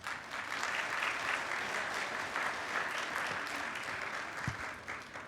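An audience applauding, a dense patter of many hands clapping that fades out near the end.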